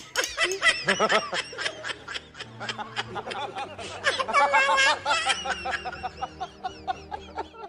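Men laughing: a long run of quick, repeated laughs, fullest about four seconds in.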